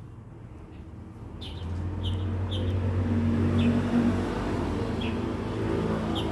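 Low, steady hum of a motor vehicle's engine that grows louder about a second and a half in and then holds, with short high bird chirps repeating over it.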